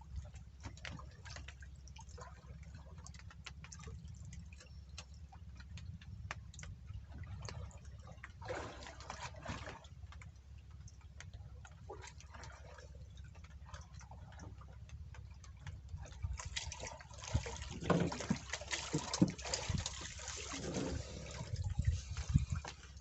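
Water splashing and sloshing, louder about a third of the way in and again through the last third, over a steady low rumble and scattered small clicks.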